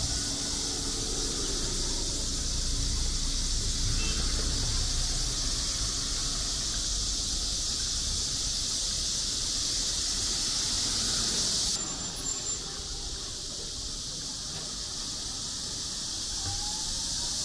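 Cicadas buzzing in a loud, steady, high-pitched chorus over low street rumble. The buzzing cuts off suddenly about twelve seconds in and starts to build again near the end.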